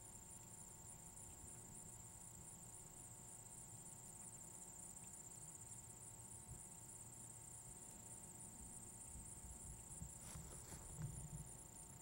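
Near silence: a faint, steady high-pitched whine with a fast, even pulsing just above it over a low hum, and a few faint crackles near the end.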